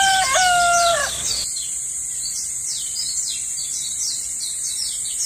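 A rooster crowing, the crow held and then dropping in pitch and ending about a second and a half in, followed by small birds chirping in a quick repeated series over a steady high hiss.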